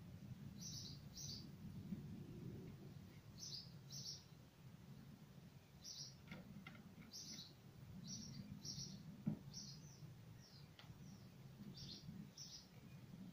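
Faint bird chirping: short high chirps, often two in quick succession, repeated every second or so over a steady low background rumble.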